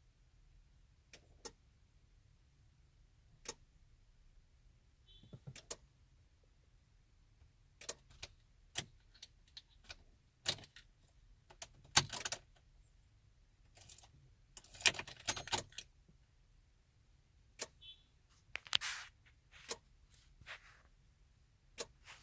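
Scattered, irregular clicks and short rattles, with a few louder clusters in the middle and a faint brief high tone twice.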